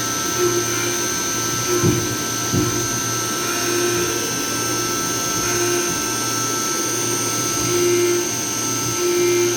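CNC milling machine cutting metal under emulsion coolant: a steady high spindle whine and low hum over a hiss, with a lower tone coming and going every second or two and a couple of short knocks about two seconds in.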